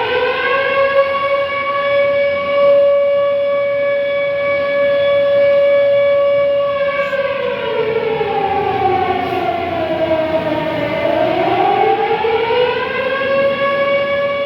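Recorded tornado siren played back over a computer's speakers: one wail that climbs to a steady high pitch and holds for several seconds, then sags in pitch about two-thirds of the way through before winding back up to full pitch near the end.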